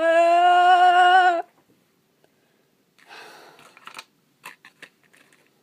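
A man's voice drawing out the word "god" of a frustrated "oh my god" for about a second and a half, then after a pause a long breath out like a sigh, followed by a few faint clicks.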